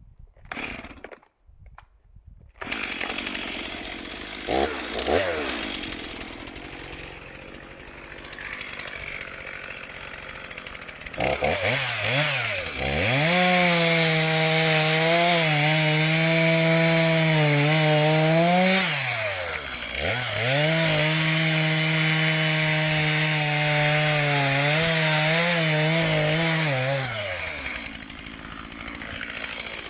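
Stihl MS 231 two-stroke chainsaw running low from a few seconds in, then opened to full throttle about a third of the way through and held there cutting into wood. Its engine speed dips sharply about two-thirds through and picks up again before dropping back near the end.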